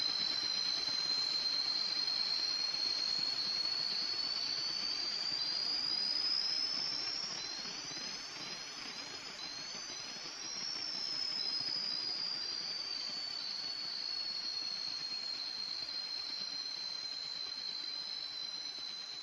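Electronic soundscape: a steady rushing noise under a high whistling tone that slowly rises in pitch to about the middle, then sinks back down. Short rising chirps repeat in quick succession throughout.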